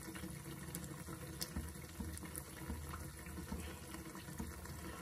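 Besan-coated stuffed bread pakora deep-frying in oil in a steel kadai: a faint, steady sizzle with a few small crackles.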